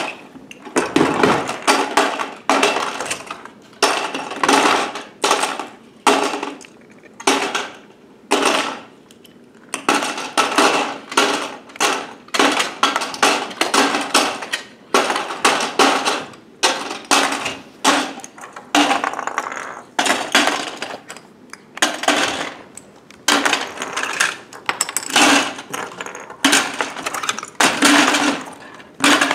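Plastic K'NEX building pieces clattering as they are dropped by the handful into a plastic tub, in quick repeated bursts.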